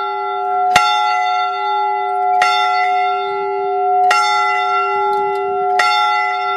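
A single church bell tolling at a steady pace: four strokes about 1.7 seconds apart, each ringing on into the next so the tone never dies away. It is one of a hundred tolls marking the centenary of the end of the First World War.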